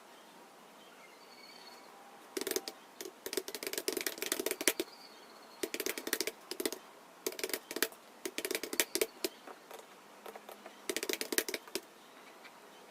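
Typing on a computer keyboard: quick runs of keystroke clicks in several bursts, starting about two and a half seconds in, with short pauses between the runs.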